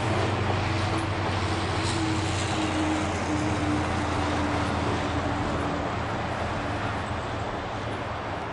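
Freight train rolling away on the track, the wheels of its rear covered hopper car rumbling over the rails with a low steady hum, a faint drawn-out tone in the first half, and the sound slowly fading toward the end.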